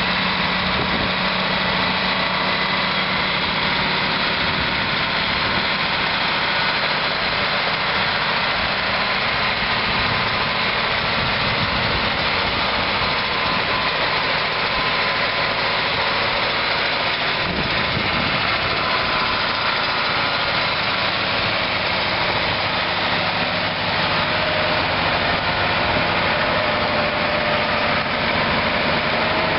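The White 4-225 tractor's Caterpillar 3208 V8 diesel engine running steadily.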